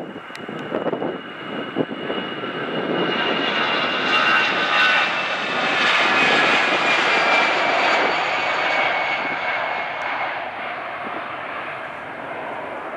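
Airbus A319 jet airliner on its takeoff roll, its twin jet engines at takeoff power: a loud rush with a high whine that swells to a peak about five seconds in, then eases off as the whine slides lower while it passes and rotates.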